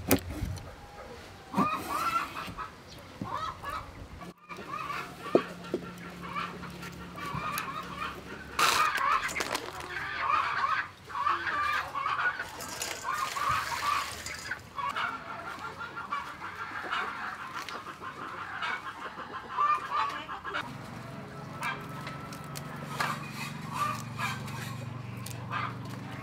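Poultry clucking and calling repeatedly, with a short stretch of water poured into a steel bowl about halfway through.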